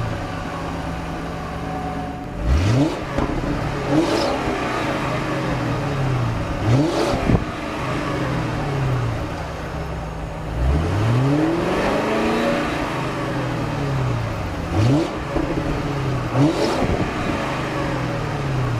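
2011 Lincoln Town Car's 4.6-litre V8 exhaust at idle, blipped by the throttle about six times; each rev rises and falls back quickly, with one longer, higher rev about halfway through.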